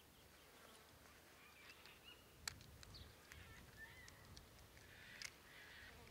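Near silence: faint outdoor ambience with a few faint, distant bird chirps and a couple of soft ticks.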